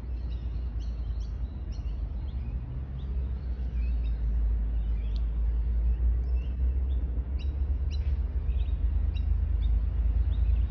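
Birds chirping, many short scattered calls, over a steady low rumble.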